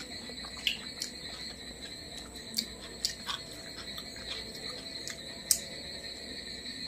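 Fingers mixing rice and fried fish on a plate, with scattered sharp clicks and taps, over a steady high-pitched whine.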